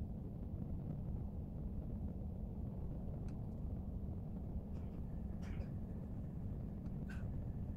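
Steady low rumble of background room noise, with a few faint light taps.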